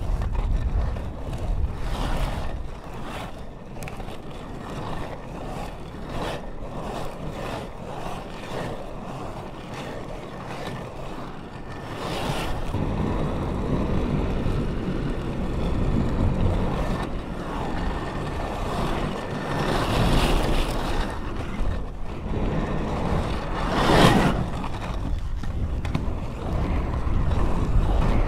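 Inline skate wheels and frames rolling on pavement: a continuous rolling rumble with a short scraping swish about every one to two seconds, getting louder about twelve seconds in.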